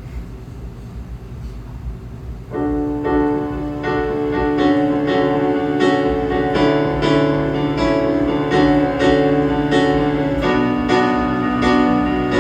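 A piano or keyboard comes in about two and a half seconds in, playing sustained chords struck in a steady rhythm as a song's intro. The chord changes near the end.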